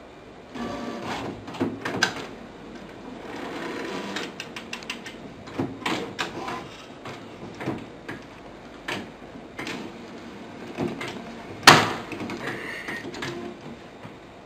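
A desktop printer working as it feeds paper out, with a steady mechanical whir. Irregular clicks and rattling knocks run over it, and one sharp knock about two-thirds of the way through is the loudest sound.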